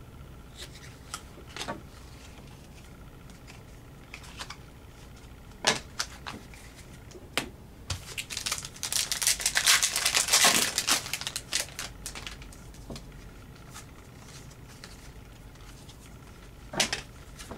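Scattered light taps and clicks of trading cards and packs handled on a tabletop, then about halfway through a Panini Contenders hockey card pack wrapper crinkling and tearing open for two or three seconds. A few more card-handling clicks follow near the end.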